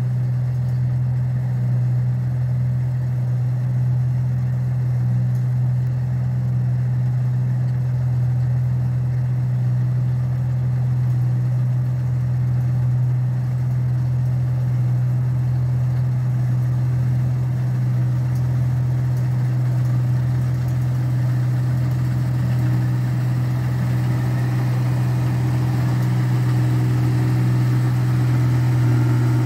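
Clayson combine harvester running steadily while cutting and threshing rice. Its diesel engine holds an unbroken low hum over a deeper rumble that swells about every second and a quarter. It grows a little louder and fuller near the end as the machine comes closer.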